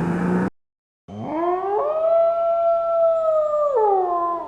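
A single long howl that rises in pitch, holds steady, then falls away.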